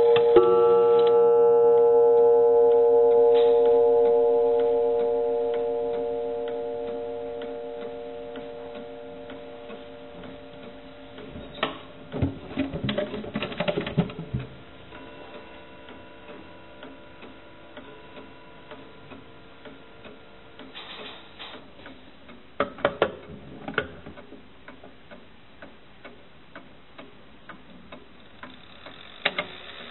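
Coiled wire gong of a 19th-century English bracket clock, struck once at the start and ringing away over several seconds. After that the clock movement ticks steadily about once a second, with bursts of clicking and rattling as the hands are turned by hand.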